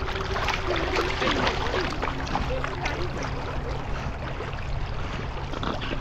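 Water splashing and lapping close around a camera mounted on a swimming golden retriever puppy as it paddles, with a steady low rumble of water against the housing.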